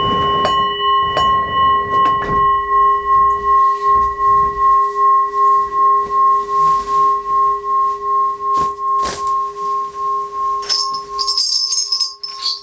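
A brass singing bowl struck once with a mallet, ringing out long with a steady wavering throb of about three pulses a second as its upper tones fade. Near the end a jingle of small shaman's bells comes in.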